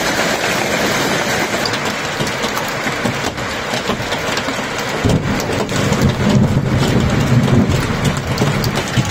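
Hailstorm with heavy rain: a dense hiss of falling water shot through with many small sharp impacts of hailstones hitting surfaces. About five seconds in, a deep rumble comes in and swells.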